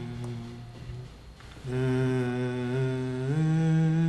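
A slow melody of long, steady held notes. A low note fades out within the first second and there is a short pause. A new note comes in about 1.7 s in and steps up to a higher note about 3.4 s in.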